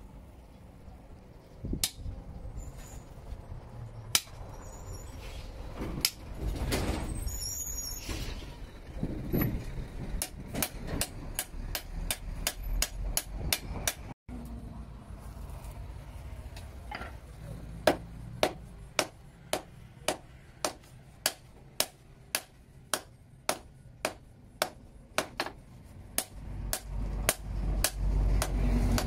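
Hand hammer striking red-hot steel from a broken chainsaw blade on a small post anvil, hot forging it into a cane knife: regular runs of sharp blows, about two to three a second.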